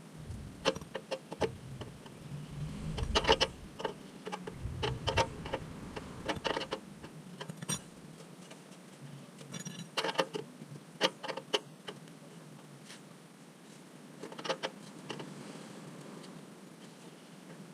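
Short clusters of sharp metallic clicks and clinks from hand tools and bolts as a steel engine skid plate is bolted back on under a car, recurring every second or two, with a low rumble in the first few seconds.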